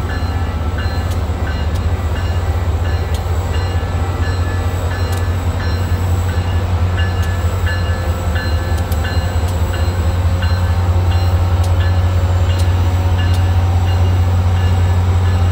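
EMD F40PH diesel locomotive's V16 two-stroke engine running with a loud, steady low drone as the locomotive rolls slowly past pulling away, with sharp clicks roughly once a second.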